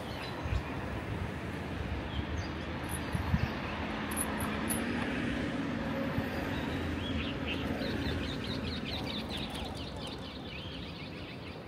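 Steady street noise with a faint passing motor hum, and from about the middle on a run of rapid, high, twittering bird chirps. A single brief knock sounds about a third of the way in.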